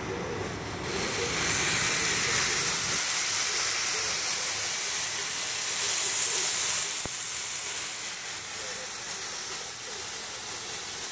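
Thick bone-in tomahawk ribeye sizzling as it sears in a hot skillet. The steady sizzle swells about a second in and eases to a softer level about seven seconds in.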